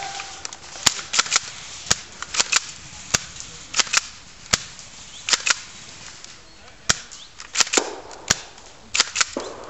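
Airsoft guns firing single shots in an irregular exchange: about eighteen sharp snaps, some in quick pairs.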